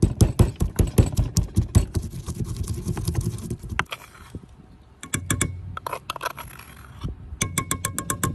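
Wooden pestle pounding garlic in a wooden mortar, a rapid run of knocks for about the first four seconds. Then a metal spoon scrapes the garlic paste out of the wooden bowl and taps against the bowl and the metal pot, with a quick run of clicks near the end.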